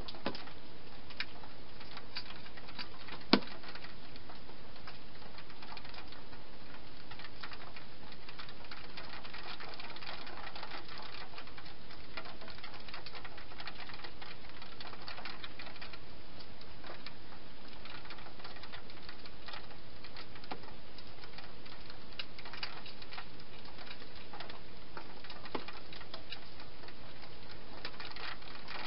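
A hedgehog eating inside a plastic feeding box: small irregular crunching clicks and taps, with one sharper knock about three seconds in, over a steady hiss.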